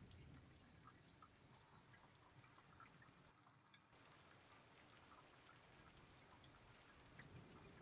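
Faint steady rain with scattered drips.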